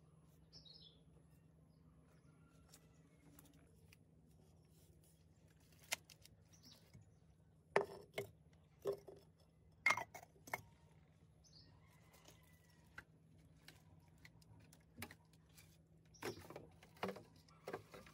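Scattered sharp knocks and scrapes as clay pots, bricks and boards are shifted by hand, the loudest around eight and ten seconds in and a cluster near the end. Faint bird chirps sound now and then over a low steady hum.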